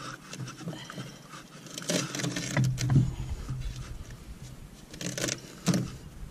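Irregular scraping, clinking and knocking of hand tools and metal parts being worked on a lawn mower's blade spindle while string wound around it from a run-over rag is pulled free. The loudest knocks come about three seconds in and near the end.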